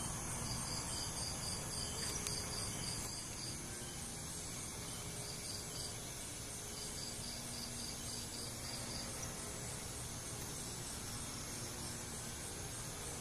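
Crickets chirping in regular high pulses, about four a second, over a steady background hiss and low rumble.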